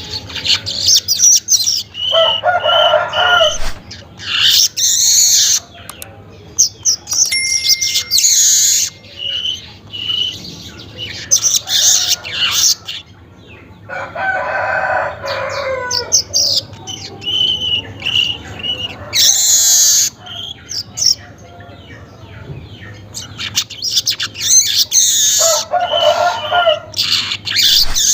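Weaver bird (manyar) singing its chattering, buzzy song in short high phrases repeated every couple of seconds. A lower, longer call comes three times, about every twelve seconds.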